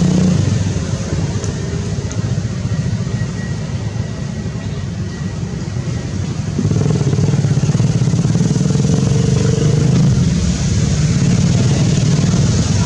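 A motor vehicle engine running steadily, its low hum easing off after the first second and growing louder again about six and a half seconds in.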